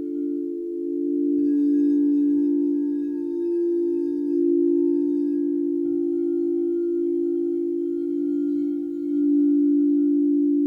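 Crystal singing bowls ringing in low overlapping sustained tones that slowly pulse against each other. Another bowl is struck about a second and a half in and again about six seconds in, each adding a brighter higher tone.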